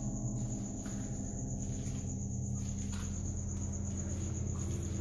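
Crickets trilling steadily, with a low steady hum underneath.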